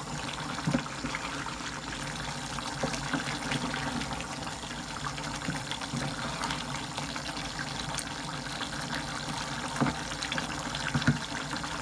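Curry simmering in an aluminium saucepan and being stirred with a wooden spoon: a steady wet bubbling hiss, with a few soft knocks of the spoon against the pot.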